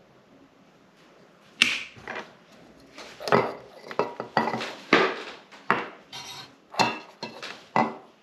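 Metal camping cookware and gear being handled, clattering and clinking in an irregular run of knocks that starts about a second and a half in.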